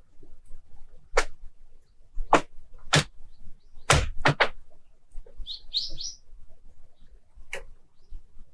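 Frozen lake ice creaking and cracking as the ice sheet is stressed: about seven sharp cracks and pings, three of them close together around four seconds in, with a few short high chirps near six seconds.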